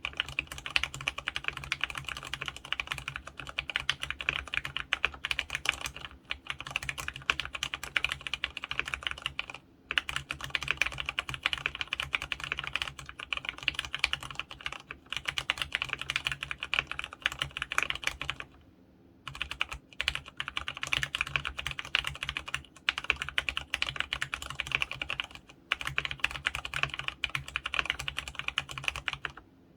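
Fast, continuous typing on an mStone Groove F mechanical keyboard with fully lubricated Clarion brown 35g tactile switches: a dense stream of key clacks, with brief pauses about ten seconds in and again a little past the middle.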